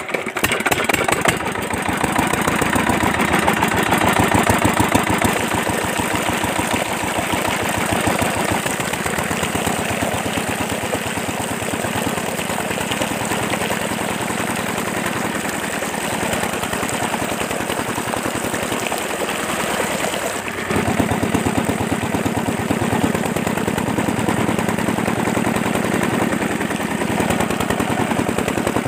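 Miniature model diesel engine water pump running with a fast, steady putter. There is a brief break about twenty seconds in, and then it carries on slightly louder.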